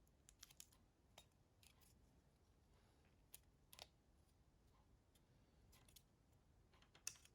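Faint, scattered small clicks and taps of plastic mobile-phone parts being handled and pulled apart: a few close together near the start, single ones spread through, and the sharpest near the end.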